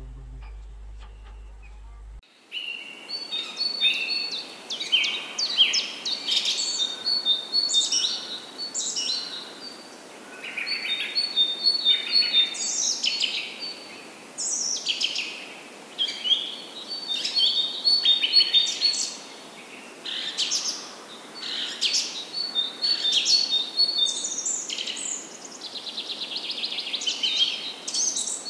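Forest birds calling: many quick, high sweeping whistles and short trills, overlapping in clusters every second or two over a steady background hiss. The calls start about two seconds in, after a stretch of low hum.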